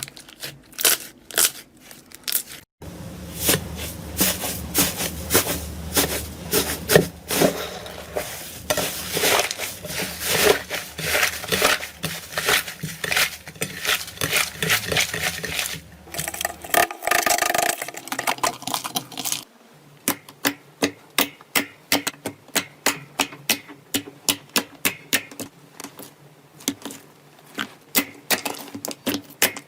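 Slime being squeezed and pressed by hand, crackling with rapid sharp clicking pops. Several short clips are cut together, so the sound changes abruptly about 3, 17 and 19.5 seconds in.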